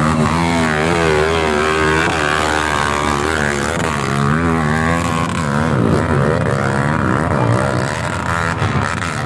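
Dirt bike engine revving, its pitch rising and falling over and over with the throttle.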